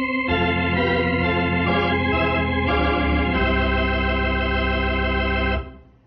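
Organ music playing held chords that change a few times, then stopping near the end.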